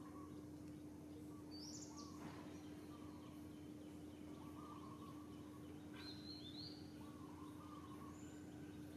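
Faint outdoor ambience of scattered short bird chirps and calls, with two higher rising chirps about two and six seconds in, over a steady low hum.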